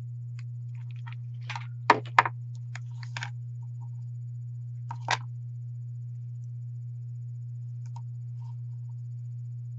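A hot glue gun set down and craft pieces handled on a tabletop: a few sharp clicks and knocks about two seconds in, loudest twice in quick succession, and one more around five seconds in. A steady low hum runs underneath.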